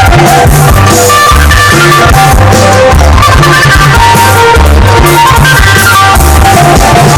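Live band playing rock-style music at sound check, with bass, guitar and a drum kit, picked up loud and unclear by a phone's microphone.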